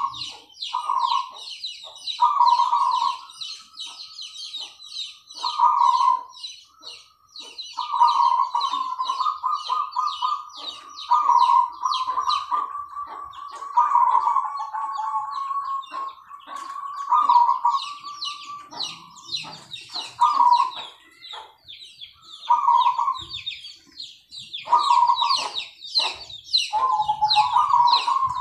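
Zebra dove (perkutut) cooing over and over in short rolling phrases at a steady pitch, a few of them drawn out longer, while small birds chirp rapidly and constantly at a higher pitch behind it.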